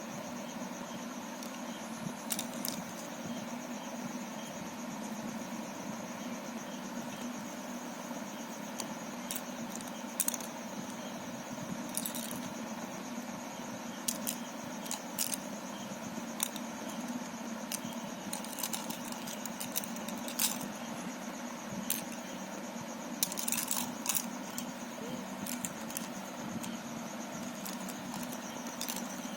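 Plastic Rubik's cube pieces clicking and rattling now and then as they are handled, over a steady background hum.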